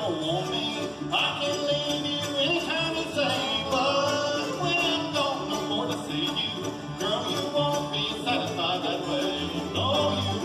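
Live acoustic bluegrass band playing: mandolin, acoustic guitars and upright bass, with sliding melody lines over the strumming.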